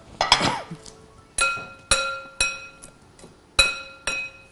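A utensil clinking against dishware about five times, each strike a sharp clink with a short bright ring on the same pitches.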